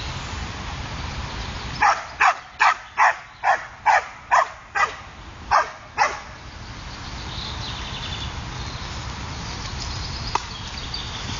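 Podenco dog barking: a quick run of about ten sharp barks, starting about two seconds in and lasting about four seconds.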